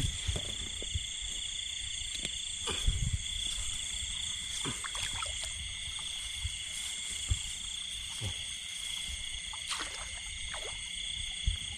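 Frogs and insects calling in a rice paddy, a steady high-pitched chorus, with a few short knocks and rustles, the loudest about three seconds in.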